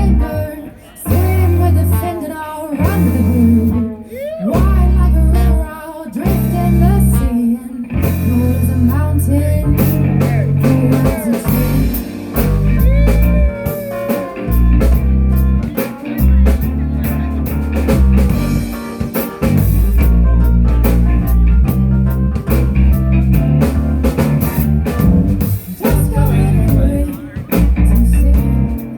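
A live band playing a song: singing over guitar, bass and drum kit, with the vocal line strongest in the first several seconds before the instruments carry on.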